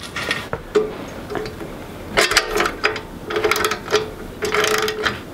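Socket ratchet wrench clicking in several short strokes as a bolt on the chicken plucker's frame is tightened.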